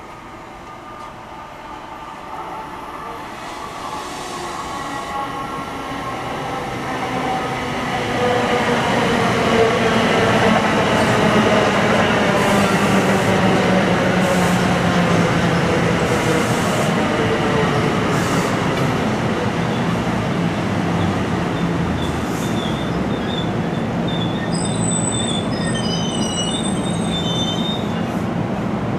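NJ Transit electric push-pull commuter train of Multilevel coaches pulling into a station and braking to a stop. It grows louder as it approaches, with a whine that falls in pitch as it slows, and thin high brake squeals near the end as it halts.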